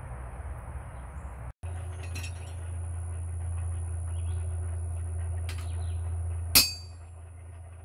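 A single hammer blow on glowing steel on the anvil, about six and a half seconds in, sharp with a short metallic ring. A steady low hum runs beneath it, with a few faint clinks before the blow.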